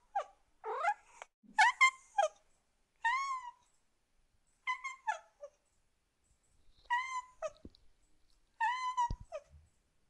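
Domestic cat meowing repeatedly: a series of about six separate meows, some rising and some arching in pitch, spaced a second or two apart.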